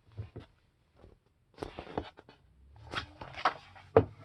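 Pages of a book being turned and handled: scattered short rustles and soft taps, the sharpest one near the end.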